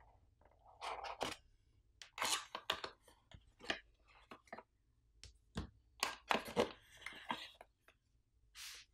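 Cardboard packaging being handled: a quick, irregular run of taps, knocks and scrapes as a small black accessory box is lifted out of its tray, with a longer sliding rub of cardboard near the end.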